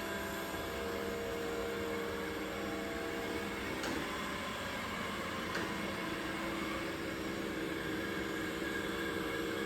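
SwitchBot S10 robot vacuum and mop running, a steady motor hum with a faint whine. Two faint clicks come in the middle.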